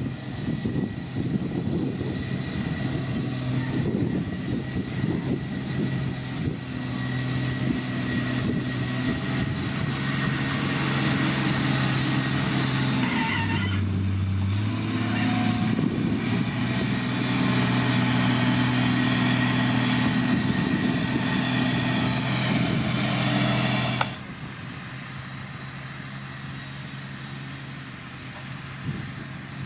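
Heavy diesel construction machinery engine running steadily under load, with a brief shift in pitch about halfway through. About 24 seconds in it drops suddenly to a quieter, lower running sound.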